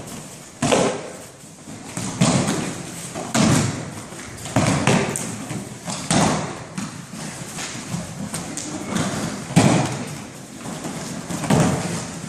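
Repeated heavy thuds of bodies hitting floor mats as aikido attackers are thrown and take breakfalls, roughly one every second or so, with the scuff of feet on the mats between them.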